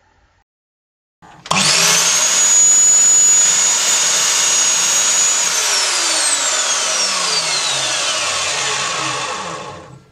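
Lumberjack SCMS210SB 8-inch sliding compound mitre saw with a 1500 W motor, starting abruptly with a high whine about a second and a half in and running at full speed as the blade cuts through a strip of hardwood. The trigger is then released, and the whine falls steadily in pitch as the blade coasts down, fading out near the end.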